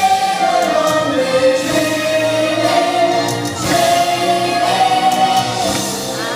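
Fireworks show soundtrack: a choir singing long held notes over orchestral music.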